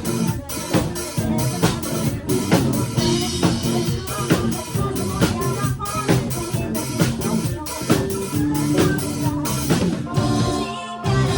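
A rock band playing an instrumental passage: a drum kit keeps a steady, driving beat of bass drum and snare under bass and keyboard. Near the end the low end drops out briefly as the song moves into its next section.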